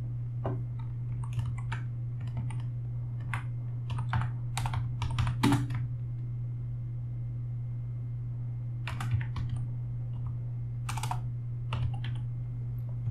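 Typing on a computer keyboard: two runs of quick keystrokes with a pause of about three seconds between them, over a steady low hum.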